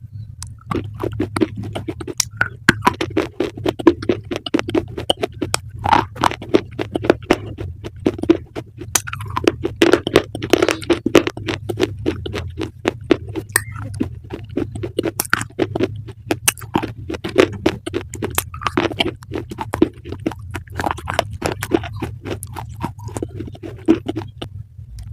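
Close-up crunchy chewing: rapid, irregular crisp crunches and bites, with a low steady hum underneath.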